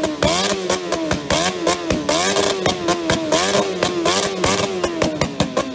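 Motorcycle engine revved hard in quick, repeated blips through an open exhaust ending in a wide metal tube, the pitch rising and falling about twice a second. The exhaust backfires with many sharp bangs as it spits flames and sparks.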